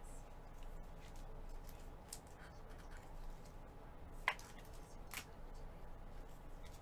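Trading cards being handled while a pack is gone through: faint ticks and rustles, with a sharp click about four seconds in and another about a second later.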